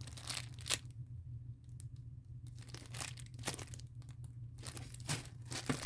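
Small foam squishy toys handled and squeezed in the hands, giving a few short scattered crinkling rustles over a steady low hum.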